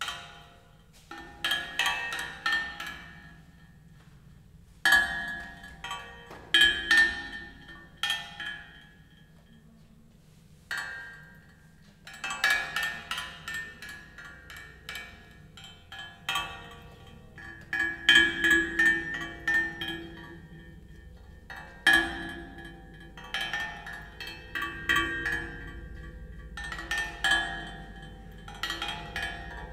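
Metal milking-parlour equipment played as percussion: irregular flurries of clinking, bell-like strikes that ring briefly, with short pauses between. A low hum builds near the end.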